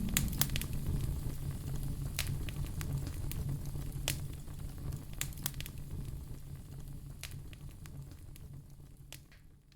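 Wood fire in a fireplace crackling, with scattered sharp pops over a steady low rumble. It fades out gradually to near silence near the end.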